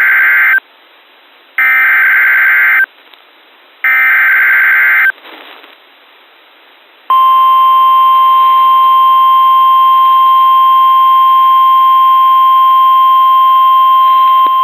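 Emergency Alert System signalling on NOAA Weather Radio: three bursts of SAME digital header tones, each a little over a second long and about a second apart. About seven seconds in comes the steady single-pitched 1050 Hz warning alarm tone, which announces a new severe thunderstorm warning.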